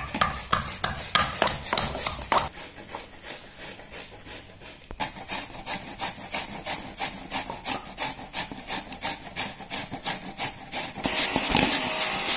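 A stone pestle thudding as it pounds ginger in a stone mortar for the first couple of seconds; then, from about five seconds in, a beetroot rasping on a stainless steel hand grater in quick, even strokes, about three to four a second, louder near the end.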